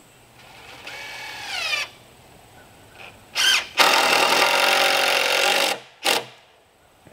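Cordless drill run in several trigger pulls while driving screws into the wooden frame: a short whine rising in pitch about a second in, a brief burst, then a louder steady run of about two seconds, and one last short burst near the end.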